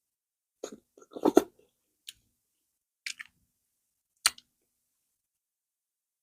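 Close-miked eating sounds: five or six short wet mouth smacks and clicks of someone chewing fufu with fish stew, spread over the first four and a half seconds.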